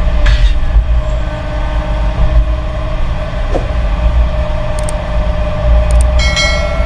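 Heavy diesel earthmoving machinery running under load, a steady deep rumble with a constant whine. A brief high metallic squeal comes near the end.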